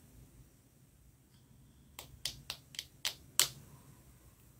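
Six quick, sharp clicks in an uneven run over about a second and a half, from long acrylic fingernails tapping on a hard surface such as a phone screen.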